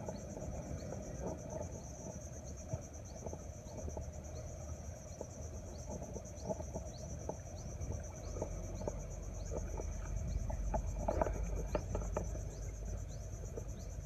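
Insects in riverside vegetation droning steadily at a high pitch, with a short rising chirp repeating about twice a second. A few faint knocks come about eleven seconds in.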